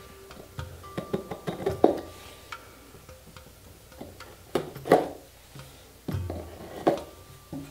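A small knife cutting the tape seals on a cardboard box: the blade scrapes and taps against the cardboard in three short bouts, the sharpest clicks about two seconds in and near the middle.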